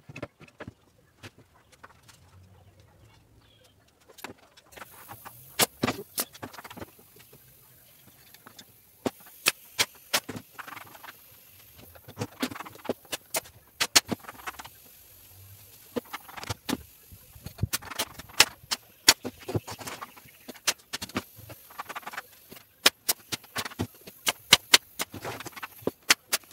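Battery-powered staple gun firing small brads into glued, mitred black particleboard, tacking the shelf box together while the glue sets. Sharp clicks come in irregular runs, dozens in all, starting about five seconds in, over a faint steady high-pitched hiss.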